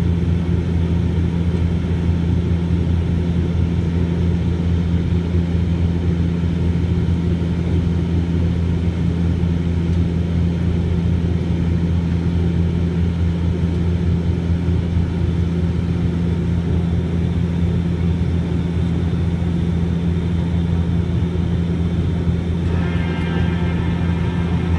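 Steady, unchanging drone of an airliner cabin in flight: engine and airflow noise heard from inside, strongest in a deep hum.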